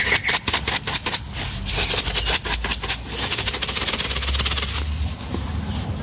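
Dry bird-feed pellets pouring out of a plastic tub into a container, a dense rattling stream of small clicks that thins out about five seconds in.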